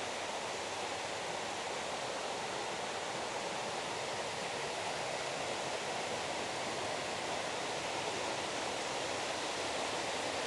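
Waterfall rushing: a steady roar of falling water that grows slowly louder, as if drawing nearer to it.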